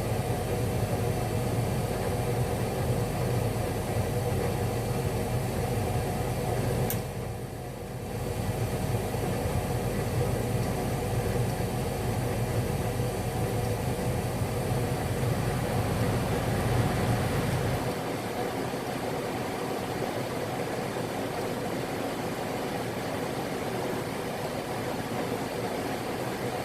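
Goodman HE96 gas furnace running with a steady mechanical hum and hiss. About a quarter of the way in there is a sharp click and the sound dips for about a second, and about two-thirds of the way in the low hum drops out while a steadier hiss carries on.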